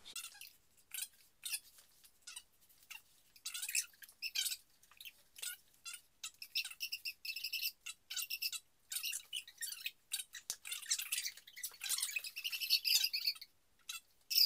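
A bird chirping and chattering: many quick, high chirps, sparse at first and coming thick and louder for a few seconds near the end.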